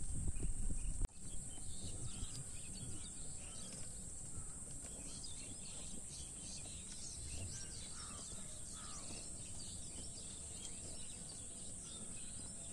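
Rural outdoor ambience with many small birds chirping over a steady high hiss. A louder low rumble cuts off abruptly about a second in.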